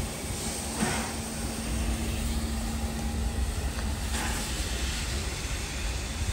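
NSW 38 class 4-6-2 steam locomotive 3801 moving slowly with a steady low rumble, and two short bursts of steam about a second and four seconds in.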